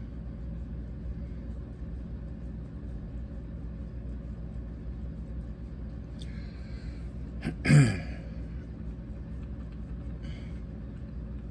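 Steady low hum of a small motorized display turntable turning. About eight seconds in, a short vocal sound from a man, falling in pitch, stands out above it.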